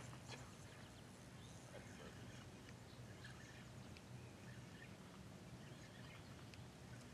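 Near silence: faint outdoor ambience with a low steady hum and scattered faint bird chirps.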